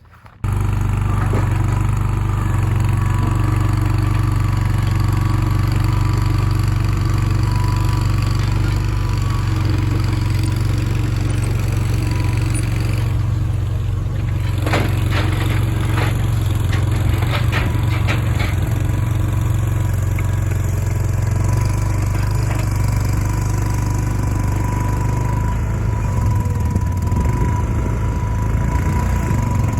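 Mini skid steer engine running steadily at working speed, with a steady whine over the engine hum and a quick run of metal clanks and knocks about halfway through as the machine moves.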